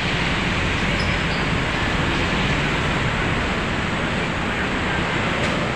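Steady road-traffic noise from a city street, an even rush with no single vehicle standing out.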